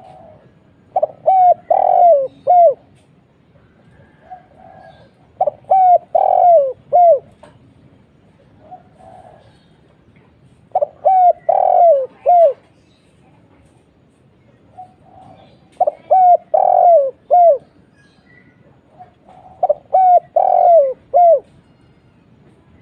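Spotted dove (tekukur) cooing in repeated phrases about every four to five seconds. Each phrase is a quick run of falling coo notes. Softer, shorter coos come in the gaps.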